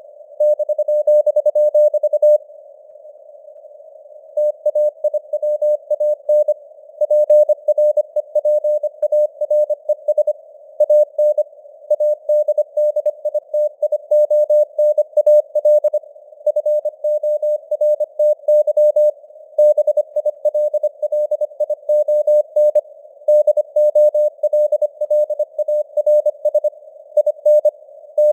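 Morse code (CW) sent at 25 words per minute: a single steady tone keyed on and off in rapid dots and dashes over a narrow band of simulated radio static, like an amateur-radio receiver. The keying pauses for about two seconds early on, between words, then runs on.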